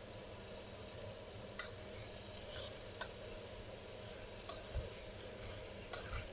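Sliced mushrooms frying in a pot with a faint, steady sizzle, and a few light clicks of a spatula knocking against the pan as they are stirred.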